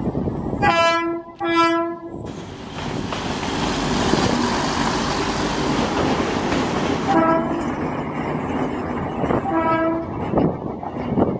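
Apolo diesel passenger railcar sounding its horn: two short blasts, then the rumble and clatter of the railcar rolling past close by. Two shorter, fainter horn toots of the same pitch come near the end.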